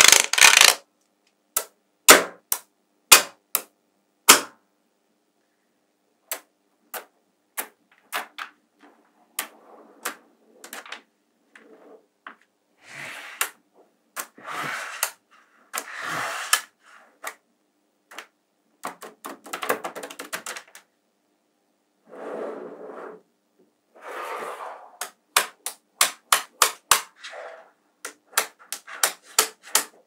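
Small magnetic balls clicking and snapping together as they are placed, with separate sharp clicks and quick runs of clicks, and short rattling, sliding passages as rows of balls are laid down and pushed into place.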